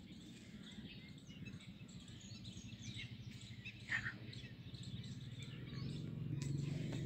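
Faint birds chirping over outdoor background noise, with a low hum growing louder near the end.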